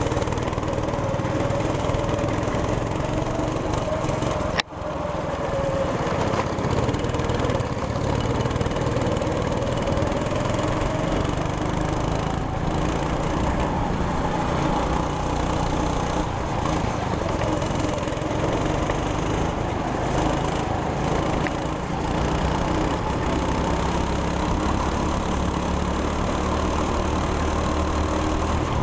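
Onboard sound of a 200cc go-kart engine running steadily under throttle, its pitch slowly rising and falling with speed. A sharp click and a brief drop-out come about five seconds in.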